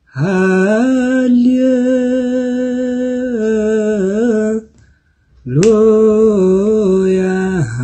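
A man chanting solo and unaccompanied in Ethiopian Orthodox Ge'ez liturgical style, holding long melismatic notes that swoop up at the start of each phrase and waver at the end. There are two phrases, with a short breath break about two-thirds of the way through, and a single sharp click early in the second phrase.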